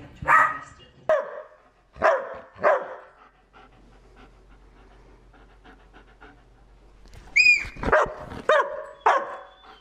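Dogs barking in short single barks: four in the first three seconds, then after a quieter stretch a high-pitched cry and a quick run of barks near the end, the later barks from a German Shepherd.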